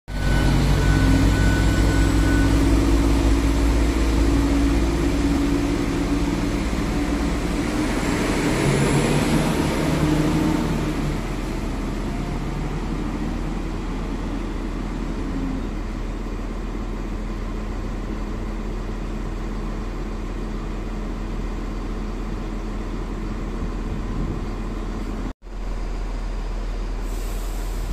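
Siemens Desiro Classic (class 642) diesel railcar's engines running under power as it pulls out along the platform, loud for the first ten seconds and then fading to a steady distant rumble as it leaves. Near the end, after a brief cut in the sound, a steady rumble from a class 643 Talent diesel railcar at the platform.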